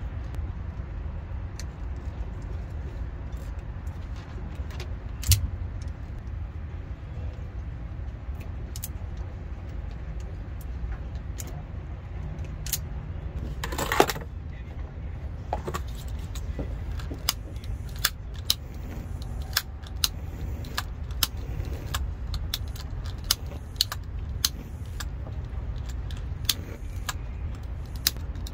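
Light clicks and rattles of speaker wires and their connectors being handled and fed through a speaker opening, growing more frequent in the second half, over a steady low rumble. A sharper click about five seconds in and a short rustle near the middle.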